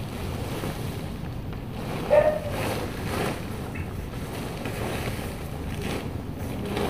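Rustling and flapping of a Six Moon Designs Lunar Solo tent's fabric as it is lifted and shaken out, with a few louder rustles about two to three seconds in.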